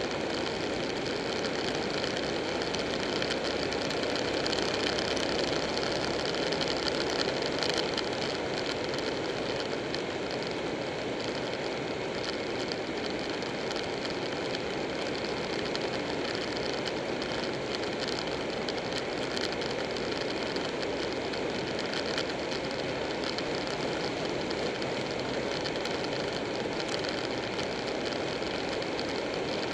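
Buell 1125R motorcycle riding at steady speed: a constant rush of wind and road noise mixed with the engine, getting slightly louder several seconds in.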